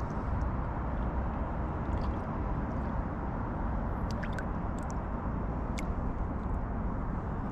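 Steady low rumble with faint water sloshing and a few small drips and ticks about four to six seconds in, as a pike is held in the river shallows to recover before release.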